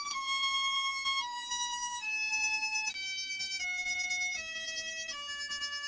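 An electronic instrument playing a slow, mostly descending melody of single held notes, about eight in all, each held about half a second to a second.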